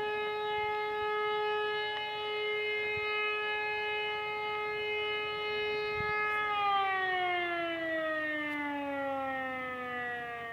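E57 electric civil-defence siren sounding a steady tone for a blast of the fire-alarm signal, then switched off about six and a half seconds in and winding down, its pitch falling slowly as the rotor coasts.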